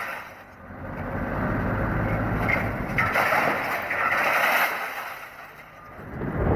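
Vehicle noise without speech, swelling and fading twice.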